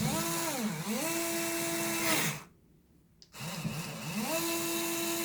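Worx WX240 4-volt cordless screwdriver running in two bursts, a steady motor whine. In the first burst the pitch dips briefly and comes back up. After a short pause and a click, the second burst rises in pitch as it spins up, then holds steady.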